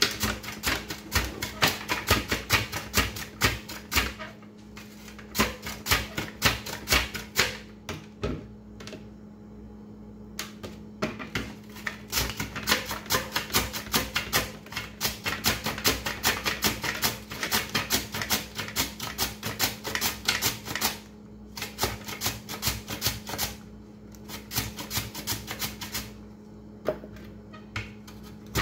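Peeled raw potato being slid rapidly back and forth across a plastic mandoline slicer, each pass a quick scrape and click as a thin slice is cut off. The strokes come several a second in runs broken by short pauses, over a steady low hum.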